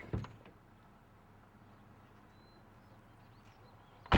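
Quiet outdoor ambience with faint, scattered bird chirps, a brief knock right at the start, then a sudden loud thump with a short ringing tail at the very end.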